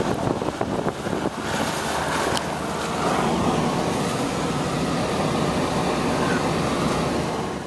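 Steady rushing road and wind noise of a car driving through snow-covered streets, with wind buffeting the microphone in the first second or so.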